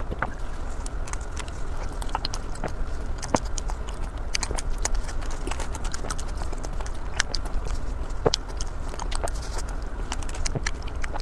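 Close-miked chewing and crunching of bread, a quick irregular run of crackly clicks over a steady low hum.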